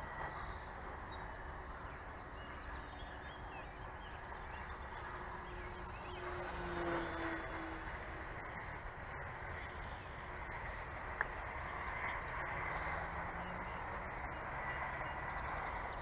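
Faint, distant drone of a small battery-powered RC plane's electric motor and propeller flying overhead, over steady outdoor background noise. The drone swells and drops slightly in pitch about six seconds in as the plane passes, and there is a single short click about two-thirds of the way through.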